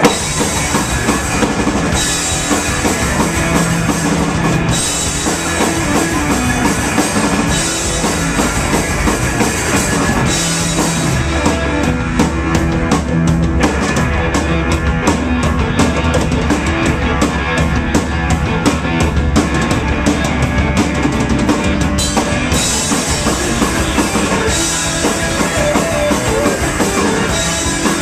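Live psychedelic rock band playing loud, with drum kit and electric guitars, and a long held low note through the middle stretch.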